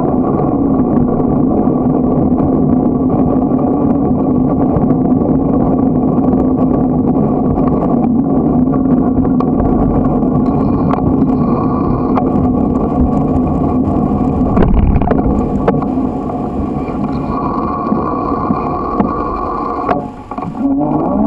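Small motor on a moving bicycle running steadily at speed, with road and wind noise. Near the end it drops off briefly, then its pitch climbs as the bike picks up speed again.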